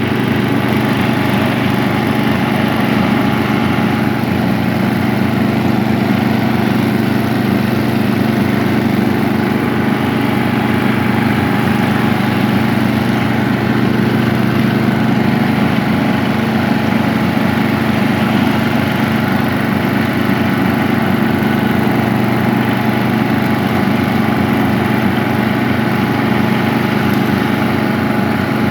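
Vintage 1970s riding lawnmower's engine running at a steady speed while the mower is driven along.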